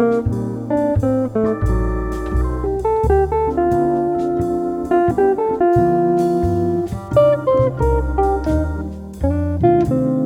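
Background jazz music led by a plucked guitar over a bass line.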